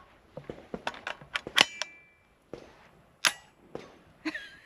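The bolt and charging handle of a Radical Firearms AR-15 in 7.62x39 being worked by hand: a string of sharp metallic clicks and clacks, the loudest with a brief ring about a second and a half in, and another sharp clack a little after three seconds. It is a feeding failure, with the bolt driving the cartridge into the feed ramp instead of up into the chamber, because the magazine spring does not lift the round high enough.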